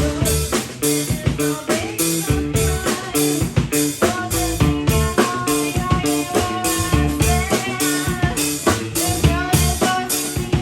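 Band music with a steady drum-kit beat of kick and snare under sustained melodic notes.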